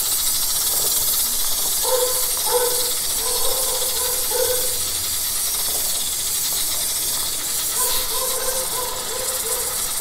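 Motul chain lube aerosol spraying onto a motorcycle drive chain in one long steady hiss, applied to the chain's inner side to reach between the O-rings.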